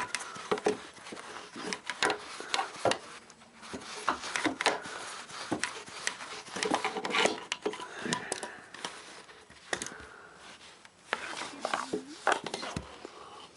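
Irregular knocks, taps, clatters and rubbing from hard objects being handled and shifted, as the refrigerator is worked out from its spot.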